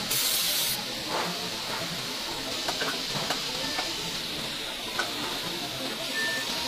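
Wheel-casting machinery hissing: a short, loud burst of hiss at the start, then a steadier hiss with a few light clicks and knocks.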